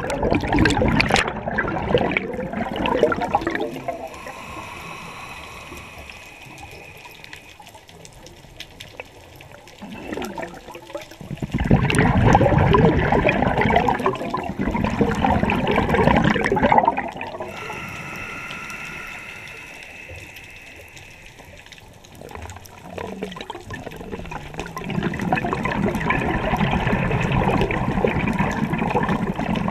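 Scuba diver breathing through a regulator underwater: three long bursts of exhaled bubbles gurgling, alternating with quieter inhalations through the regulator that carry a faint whistling tone.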